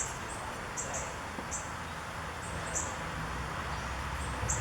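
A small bird chirping: short, high notes repeated at irregular intervals over a steady background hiss, with a low hum growing a little louder past the middle.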